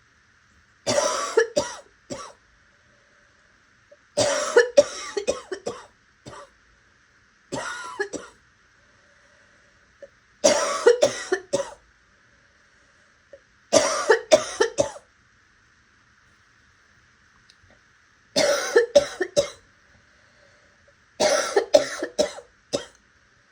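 A person coughing raspily in seven short fits of two to four coughs each, coming every three or four seconds, with a breath between fits.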